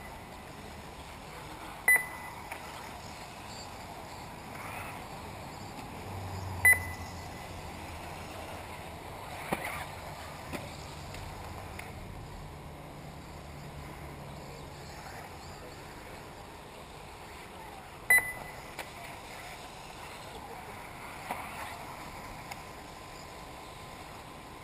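Short high electronic beeps from a race lap-counting system, three loud ones spread through, over a steady background noise of a 1/10 scale RC buggy race on a dirt track.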